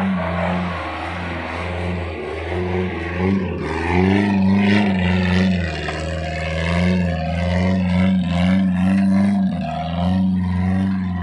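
Off-road 4x4's engine running under load as the vehicle crawls through undergrowth, its pitch rising and falling with the throttle; the revs climb between about three and five seconds in.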